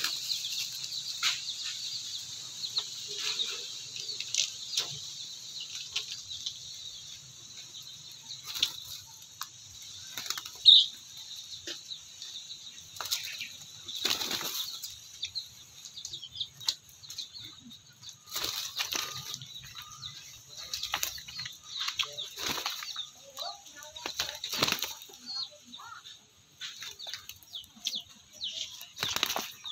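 Chickens beating their wings hard in repeated flurries as a frizzle hen and a small rooster fight, with short pauses between the bouts. One short, loud high note sounds about a third of the way in.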